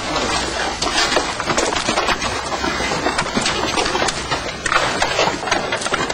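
Broken timber and rubble knocking and clattering as wreckage is pulled apart and hauled by hand: a dense, irregular run of knocks and cracks.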